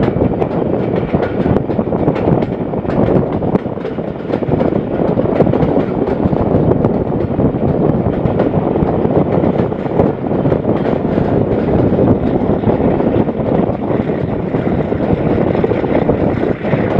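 Passenger coaches of a Pakistan Railways express train running at speed, heard from a coach window: a steady rush of wheels on rail and passing air.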